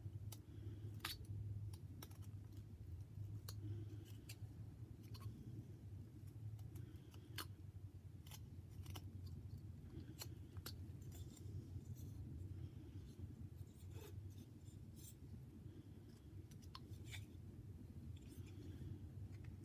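Whittling knife cutting wood: irregular sharp slicing clicks, about one every second or two, as shavings are pared off a small carved figure. A steady low hum runs underneath.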